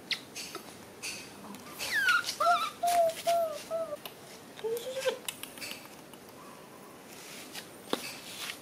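A young animal's high squeaky cries: a falling squeal about two seconds in, then a quick string of short arched cries and one lower cry a second later, with a few sharp clicks and taps near the end.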